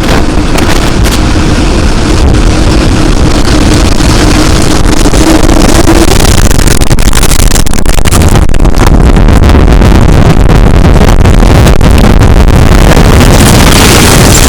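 Wind of a wedge tornado closing in: a loud, continuous rushing noise with a deep rumble that builds over the first few seconds and then holds. A faint steady tone lies under it until about six seconds in.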